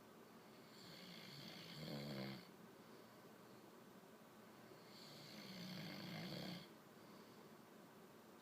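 A sleeping man snoring: two long snores about four seconds apart, each swelling over a second or two and then stopping sharply.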